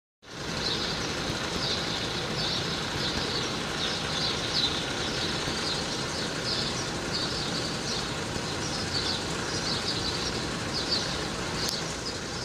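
Steady low street rumble, with a continuous run of short high chirps over it.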